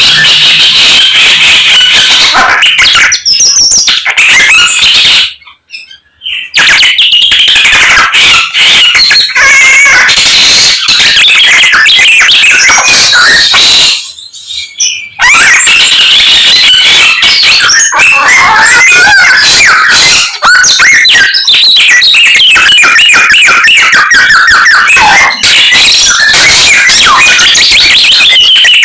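Samyong songbird singing a loud, fast, varied song full of gliding whistles and chatter, packed with imitations of other birds' calls. The song breaks off briefly twice, about five and fourteen seconds in.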